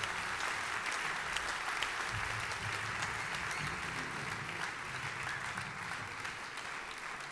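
Large audience applauding, a dense patter of many hands clapping that slowly eases off.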